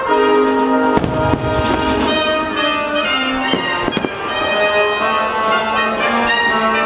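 Orchestral music playing, with fireworks shells going off over it in a few sharp bangs, the clearest about a second in and around four seconds in.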